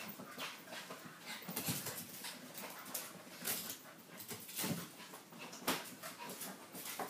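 A puppy and a small dog play-fighting: scuffling with short dog noises coming at irregular intervals.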